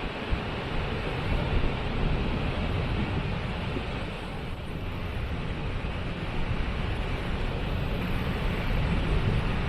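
Waterfall: a steady rush of falling water with a deep rumble underneath.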